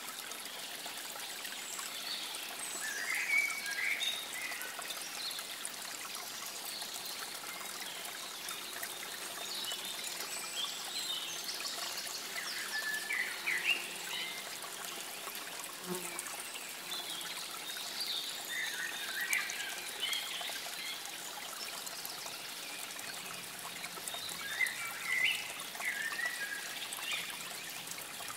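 Water trickling steadily, with short bird calls coming in bursts every few seconds.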